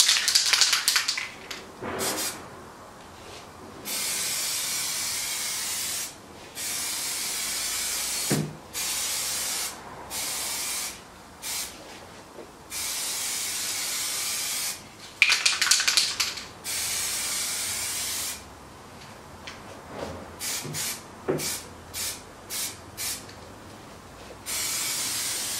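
Aerosol can of black Plasti Dip spraying in repeated passes, each a steady hiss lasting one to two seconds with short gaps between, and a run of quick short sprays around twenty seconds in. Bursts of rattling near the start and about fifteen seconds in are the can being shaken, its mixing ball knocking inside.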